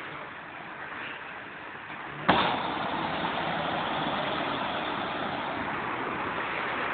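A car driving through deep floodwater on a street, its tyres throwing up a spray of water. The water noise jumps up suddenly a little over two seconds in and stays loud and steady.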